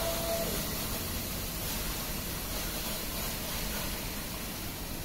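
Touchless automatic car wash gantry spraying a fine mist of water wax over the car during its wax/coating stage: a steady hiss of spray.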